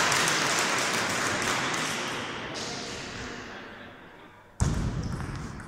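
Light taps of a table tennis ball over a hiss of hall noise that fades away, then a sudden dull thud near the end.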